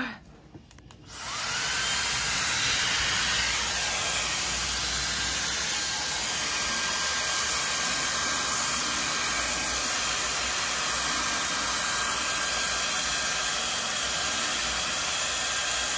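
StyleWrap 4-in-1 hot-air dryer brush with its air-wrap curling barrel switching on about a second in, its motor coming up to speed and then blowing air with a steady rush as it wraps a curl.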